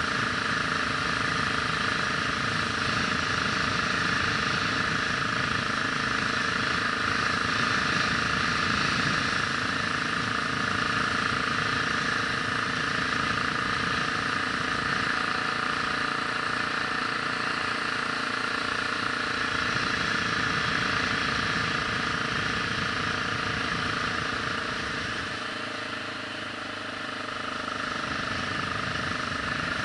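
Vehicle engine running steadily while driving, dropping a little in level near the end as it eases off.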